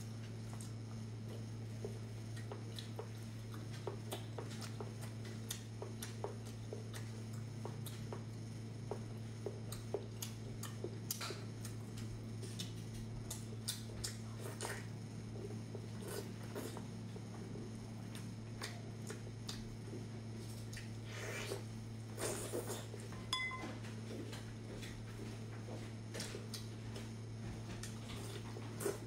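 A person eating by hand, biting and chewing braised pork on the bone, with scattered wet smacks and clicks from the mouth and hands. A steady low hum runs underneath.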